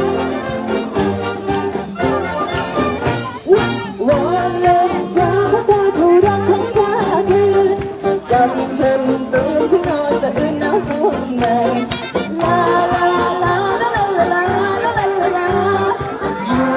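Live band playing an upbeat song with a singer, with a hand-shaken tambourine jingling and maracas rattling along in time.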